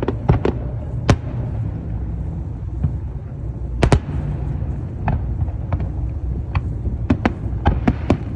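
Fireworks going off: scattered sharp cracks and pops over a continuous low rumble, with louder cracks about a second in and just before four seconds.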